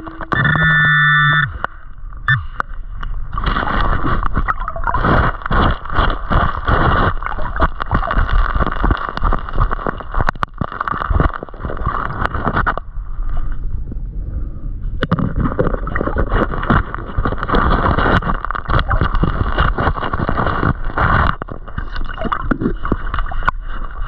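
Underwater sound of a gloved hand digging through creek-bed gravel and rocks: stones clattering and knocking against each other over a gurgling wash of water. There is a short lull about two-thirds of the way through.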